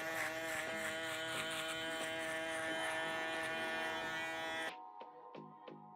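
Cordless electric foil shaver running with a steady buzz as it is worked close against the skin below the fade line. It cuts off abruptly about four and a half seconds in, leaving a few faint ticks.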